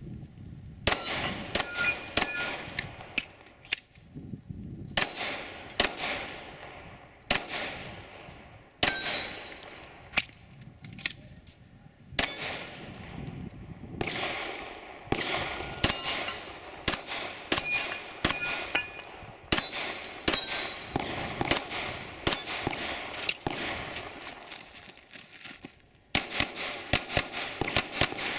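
Pistol shots fired in quick strings. Several are followed by the ringing clang of steel plate targets being hit.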